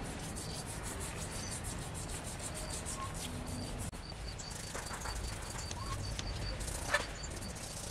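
Small brush scrubbing thick white paint onto a rough wooden block, a steady rubbing and scratching. An insect chirps faintly about four times a second in the background.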